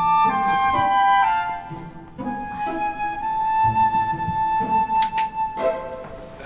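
Background music: a flute-like melody that steps downward, then holds one long note. Two short sharp ticks sound about five seconds in.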